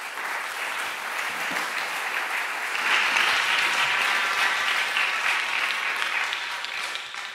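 Audience applauding, building to its loudest about three seconds in and dying away near the end.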